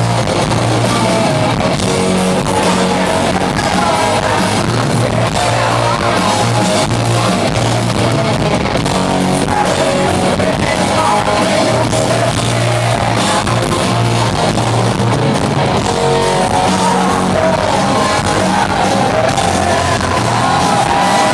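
Live band playing loud rock music with a singer, heard from within the audience.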